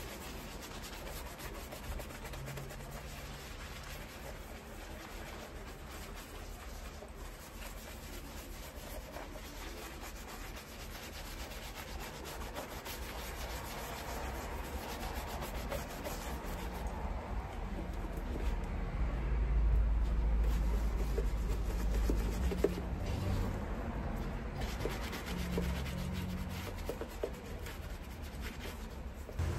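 Hand brush scrubbing a leather boot upper lathered with foamy cleaner: steady rubbing strokes that grow louder for a few seconds past the middle.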